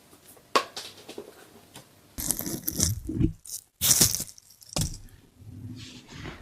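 A woman sneezing once: a drawn-in breath, a brief hold, then a sharp explosive burst about four seconds in, with a few small clicks around it.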